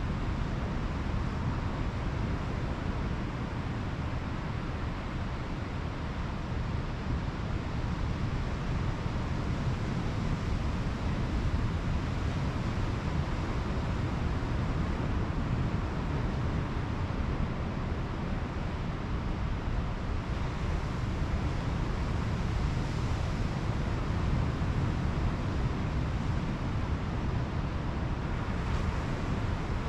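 Pacific Ocean surf washing on a beach, a steady low rumble with wind on the microphone.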